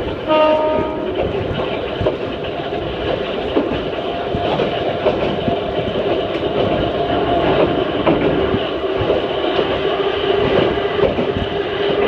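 Ohmi Railway 220-series railcar with nose-suspended traction motors running at speed, heard from inside the car: steady motor whine and wheel-on-rail noise with occasional rail-joint clicks. A brief high tone sounds about half a second in.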